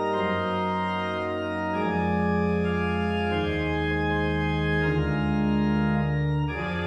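Organ music: slow, held chords over a sustained bass, the chords changing every second or two.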